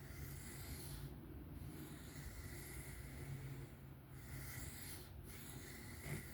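Faint repeated rubbing of a 154CM steel knife blade being drawn freehand across a sharpening stone, with short breaks between strokes, over a steady low hum.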